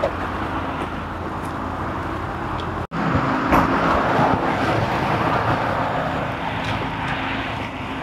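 Steady road traffic noise, vehicles running. It breaks off for an instant about three seconds in, then carries on.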